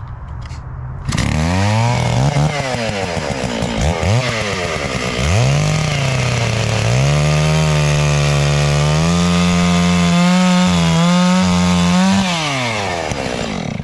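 Cordless electric chainsaw switching on at full speed about a second in, its motor whine rising and falling as the chain bites into a log. It then holds a steady, slowly rising pitch while cutting through and winds down with a falling pitch near the end.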